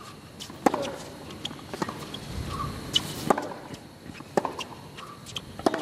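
Tennis ball hit back and forth with rackets in a baseline rally on a hard court: five sharp strikes about every second and a quarter, with fainter knocks between them.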